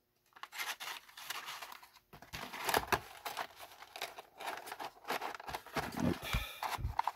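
A small cardboard parts box being worked closed by hand: the flaps scrape and rustle against each other with irregular small clicks and taps as they are pushed and tucked in.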